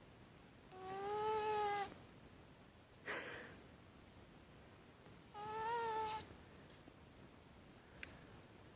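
A sleeping cat snoring: two long whistling notes about four seconds apart, with a short breathy huff between them.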